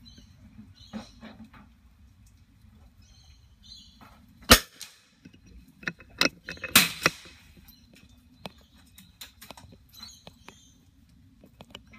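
.22 LR rimfire benchrest rifle firing a single shot about four and a half seconds in, the loudest sound, a sharp crack. A second or two later come a few quieter sharp clicks and clacks.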